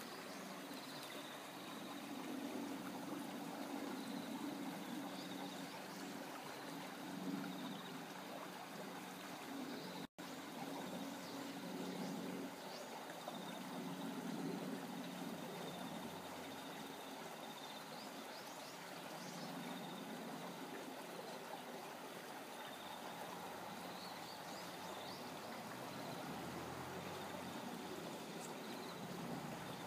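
Steady, fairly quiet rush of running water, like a small stream trickling, with a faint high tone that comes and goes. The sound cuts out for an instant about ten seconds in.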